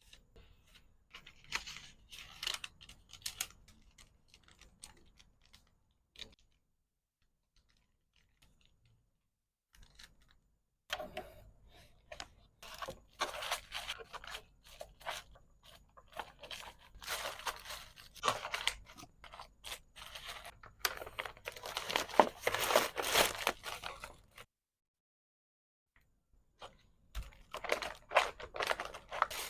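Handling of packaging materials: crinkling, tearing and scraping of wrapping with small clicks. It comes in bursts, with two quiet gaps.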